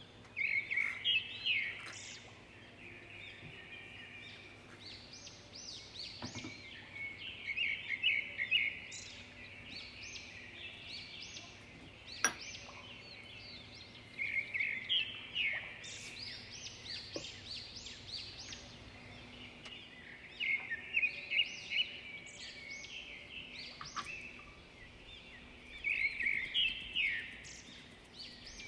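A small songbird singing in repeated phrases of quick, high chirps, one phrase every six or seven seconds, over a faint steady hum. A single sharp click comes about twelve seconds in.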